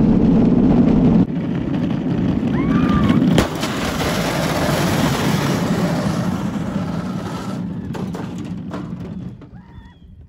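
Go-kart running loud and steady, changing in tone about a second in, then fading away over the last few seconds.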